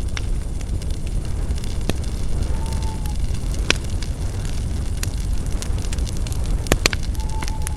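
Campfire of burning spruce branches crackling, with sharp pops every second or two over a steady low rumble.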